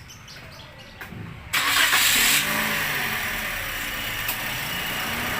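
Toyota Vios 1NR four-cylinder engine starting about a second and a half in, with a brief rev that settles into a steady idle.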